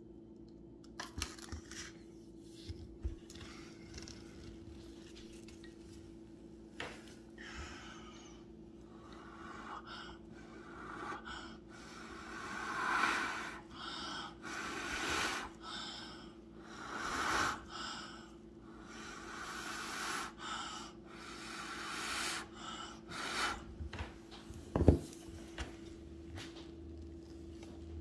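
A person blowing out in a series of long breaths, one every two seconds or so, with a few light clicks in the first seconds and a single sharp click near the end.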